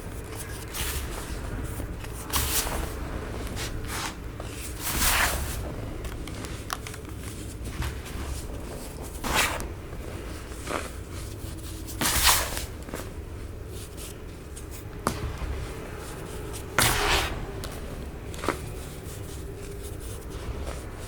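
Compressed baking soda crunching as it is crushed: about five short, loud crunches a few seconds apart, with fainter crackles between them, over a steady low hum.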